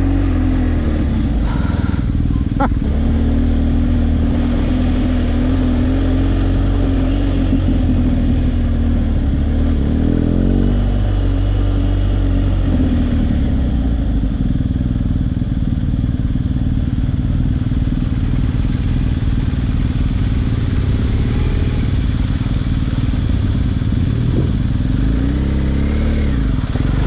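BMW R1250GS Adventure's boxer-twin engine running at low speed off-road, its pitch rising and falling as the throttle is opened and closed.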